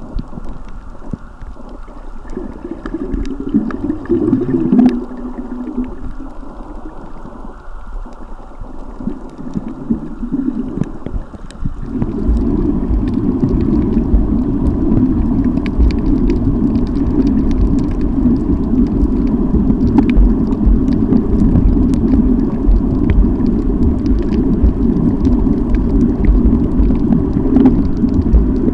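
Muffled, steady rumbling water noise picked up by an underwater camera in its waterproof housing, with scattered faint clicks over it. The rumble gets louder about a third of the way through.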